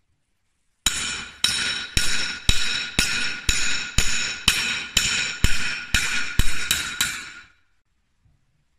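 Farrier's hammer striking a cold steel horseshoe on a steel anvil, about fourteen ringing blows at roughly two a second, the last few a little quicker, then the ring dies away. The strikes rock the shoe, bending a rocker into it.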